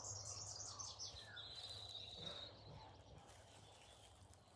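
Faint garden ambience: distant birds chirping, with one thin, high held note about a second and a half in, over a low steady hum.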